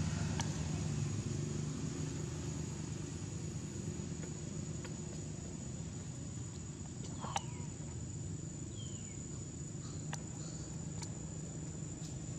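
A steady high insect drone over a low, steady engine-like rumble, with a few faint clicks. Two short high chirps come about halfway through.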